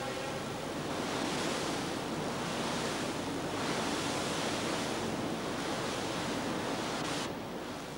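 Sea water rushing and splashing along the hull of a moving coastal passenger ship, with wind on the microphone; the rush falls away near the end.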